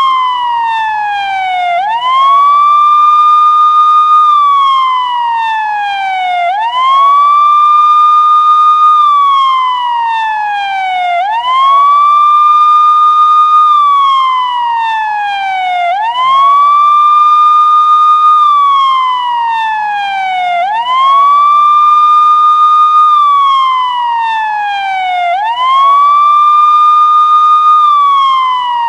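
US police car electronic siren on its wail setting. The pitch sweeps up quickly, holds high for about two seconds, then glides slowly down, repeating about every four and a half seconds, six rises in all.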